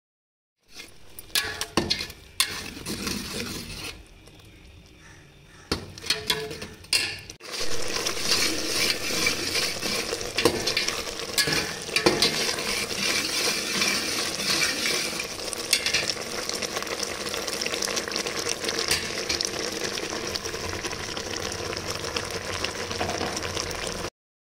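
A spatula stirring and scraping inside a metal pot of grated coconut cooking in a thick brown syrup, with sharp knocks against the pot. From about seven seconds in, a steady sizzle of the bubbling syrup runs under the stirring.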